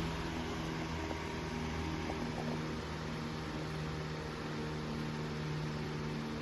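Antique Century S3 16-inch table fan running: a steady motor hum under an even rush of air from the blades.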